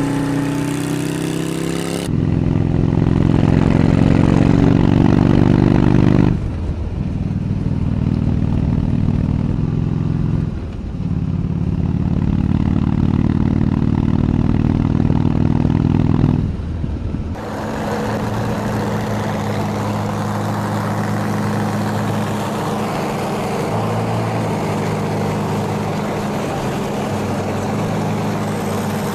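Three motorcycles heard in turn, each running at speed. First a Harley-Davidson Nightster 1200 V-twin with Cycle Shack mufflers, then from about two seconds in a Harley-Davidson Softail Breakout V-twin, louder, its note dropping briefly twice. After a cut two-thirds of the way through, a Honda Rune's flat-six with a steadier, smoother note.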